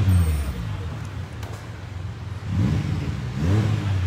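Motorcycle engine being revved with short throttle blips, its pitch rising and falling with each one: a rev dying away at the start, then two quick revs about a second apart near the end.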